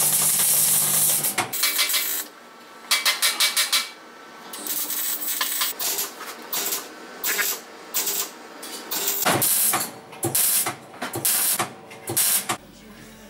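Wire-feed (MIG/MAG) welder arc crackling and hissing on sheet steel: one longer bead at the start, then a string of short tack and stitch welds, each burst well under a second.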